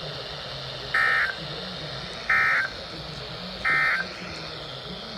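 Emergency Alert System end-of-message signal on weather radio: three short bursts of the warbling SAME digital data tone, a little over a second apart, marking the end of a severe thunderstorm warning broadcast. Steady radio static runs underneath.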